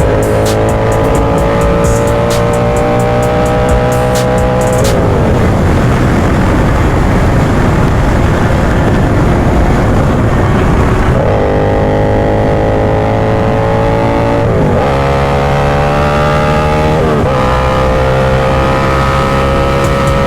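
Motorcycle engine pulling hard with its pitch climbing, then the throttle shuts about five seconds in, leaving mostly wind rush. About eleven seconds in it pulls again, rising through two quick upshifts near fifteen and seventeen seconds, then holds a steady cruise.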